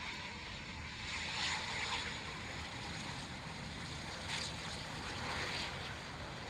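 Eurofighter Typhoon's jet engines heard faintly from a distance as a steady rushing noise, swelling briefly a couple of times.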